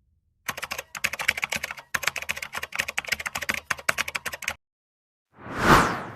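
Typing on a computer keyboard: a fast, uneven run of key clicks lasting about four seconds. Near the end, a separate rush of noise swells up and fades.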